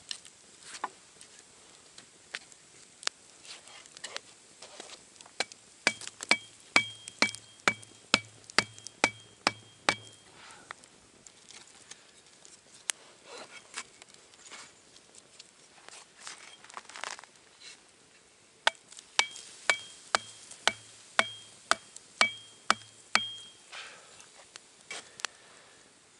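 Hatchet striking an upright wooden stake in two runs of about ten blows each, roughly two a second, each blow with a short metallic ring and a dull thud. Campfire crackling in scattered clicks between the runs.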